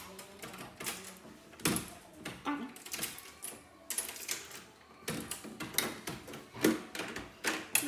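Metal door locks and a lever handle being worked by hand: a run of sharp, irregular clicks and clacks as the thumb-turn locks and latch are turned, some with a brief metallic ring.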